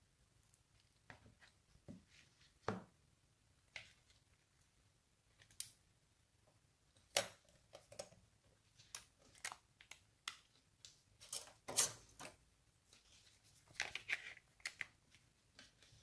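Faint, scattered clicks and taps of a smartphone's circuit board and plastic housing being handled and pressed together by gloved hands.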